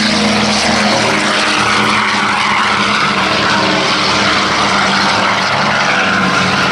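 Douglas C-47 Dakota's twin Pratt & Whitney R-1830 radial engines at take-off power as it lifts off and climbs away: a steady, loud drone of piston engines and propellers.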